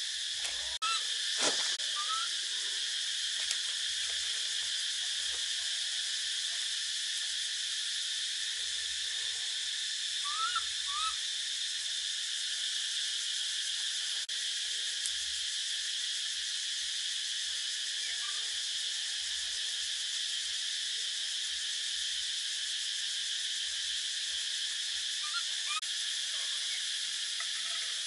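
Steady outdoor insect chorus, a continuous high-pitched buzzing drone. A few short rising chirps come through here and there, and there is a single knock near the start.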